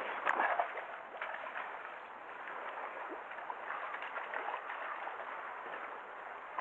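Water splashing and gurgling irregularly as a hooked black sea bream is played and brought in at the surface, with a sharp click about a third of a second in.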